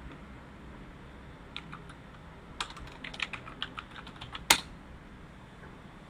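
Computer keyboard typing: a couple of keystrokes, then a quick run of about a dozen clicks as a short terminal command is typed. It ends with one much harder keystroke about four and a half seconds in, the Enter key that runs the command.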